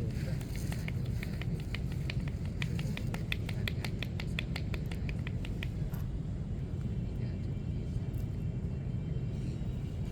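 Steady low rumble of street traffic. From about half a second in until about six seconds, a quick, even run of sharp light taps or ticks, about four or five a second, stops suddenly.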